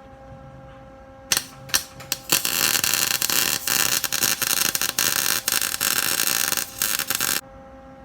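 Arc welder laying a bead on steel: a few short sputtering arc starts about a second in, then a continuous crackling arc for about five seconds that cuts off suddenly.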